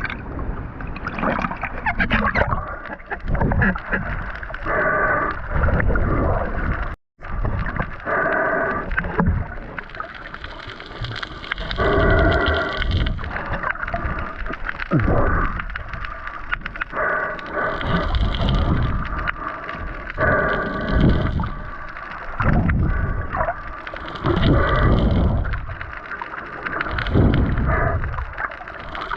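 Snorkel breathing and water sloshing and gurgling around an underwater camera, in repeated surges every three to four seconds, several of them carrying a pitched, voice-like tone.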